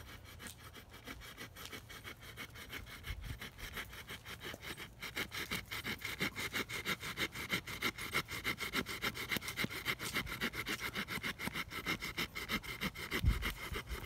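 Small fold-out hand-saw blade of an Ax Multi Tool cutting through a tree limb just under 2 inches thick, in quick, even back-and-forth strokes that get louder partway through. A dull low bump near the end.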